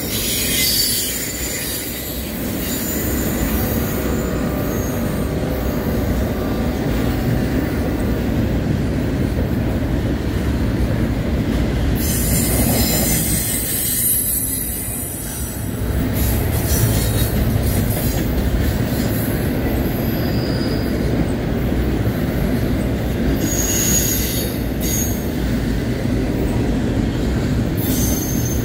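Double-stack intermodal well cars rolling past at track side on a curve: a steady rumble of steel wheels on rail, with high-pitched flange squeal coming and going as the wheels grind through the curve.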